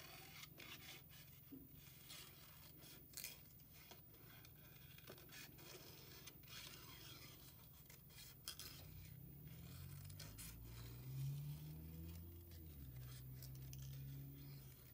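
Scissors snipping through green construction paper, with faint cuts and paper rustling. A faint low hum joins in about nine seconds in.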